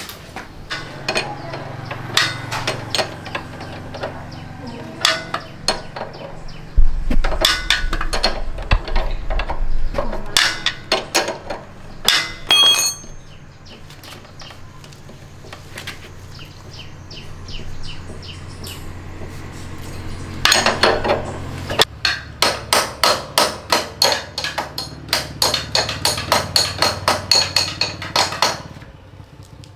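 Repeated sharp hammer-like strikes: scattered knocks, a heavy thud about seven seconds in, then a fast even run of about three strikes a second over the last several seconds.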